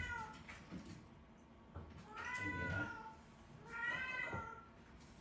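Turkish Van kitten meowing repeatedly: one meow tails off just as the sound begins, then two more follow about a second and a half apart, each rising and then falling in pitch.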